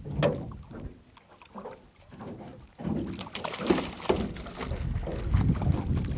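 Water splashing and sloshing as a hooked brook trout is drawn to the boat and scooped into a landing net. It is fairly quiet at first, and the irregular splashing sets in about three seconds in.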